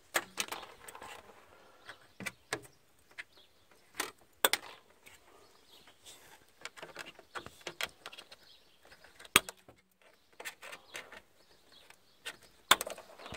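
Cutters snipping the excess tails off nylon zip ties, heard as scattered short, sharp clicks and small plastic knocks. The loudest snaps come about four and a half seconds in, about nine seconds in, and near the end.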